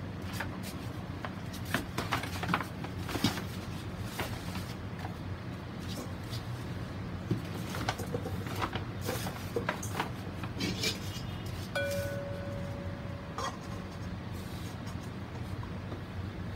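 Scattered light clicks and rustles of handling work over a steady low hum, with a brief steady tone about twelve seconds in.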